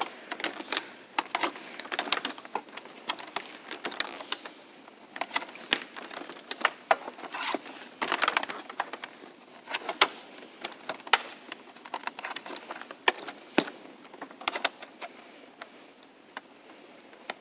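Irregular plastic clicks and rattles of a Sanitaire QuietClean upright vacuum being handled with its motor off, as its power cord is wrapped up and its plug handled.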